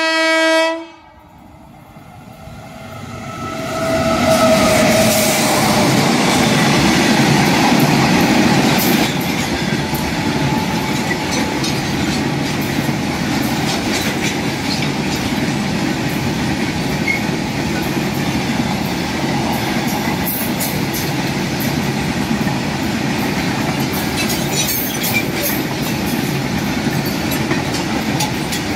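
A WAG9 electric freight locomotive hauling a train of oil tank wagons comes up and passes close by. A short horn note sounds about four seconds in, then the tank wagons' wheels run steadily over the rails with a clickety-clack. The sound swells over the first few seconds and stays loud.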